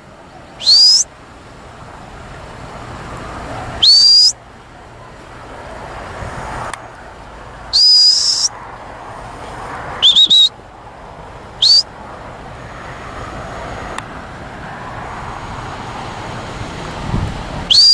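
A sheepdog handler's whistled commands: a series of sharp, high whistles a few seconds apart, most sweeping quickly upward, one held a little longer, and a quick double near the middle.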